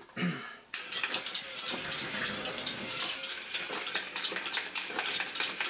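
A battery-powered 3D-printed walking robot starts up about three-quarters of a second in. Its small geared motor and plastic walking and rotating mechanism run with a rapid, fairly even stream of clicks from the clicker built into its base.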